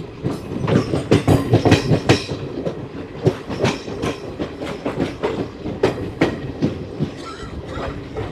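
Passenger coach wheels clattering over the track as the express runs along, heard close up through an open coach doorway over a steady rumble. A quick run of clacks comes about a second in, followed by single clacks every half second or so.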